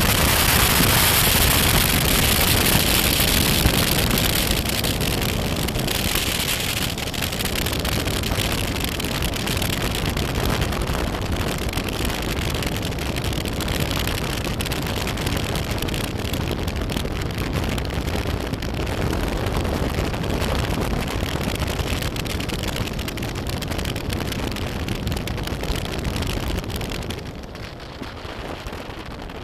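Wind rushing over the microphone of a BMW F800GS motorcycle in motion, with engine and tyre noise beneath. The noise is loudest in the first few seconds and drops a little near the end.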